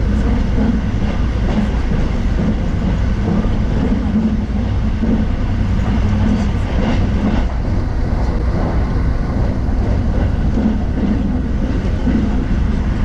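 Electric commuter train heard from inside a passenger car while running: a steady low rumble of wheels on the rails.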